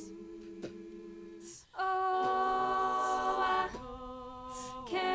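A cappella vocal group singing sustained backing chords in close harmony, swelling louder about two seconds in and easing back. A solo voice comes in near the end on "Oh, I".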